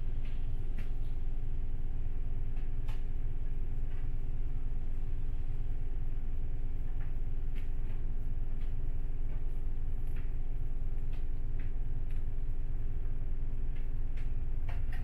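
City bus diesel engine idling steadily, heard from inside the passenger cabin.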